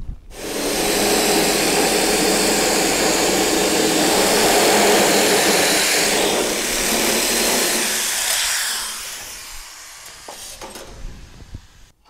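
Handheld electric sheet-metal shears cutting through sheet steel: a steady motor buzz with the chatter of the cutting blades. It runs for about eight seconds, then dies away over the next two, with a few light clicks near the end.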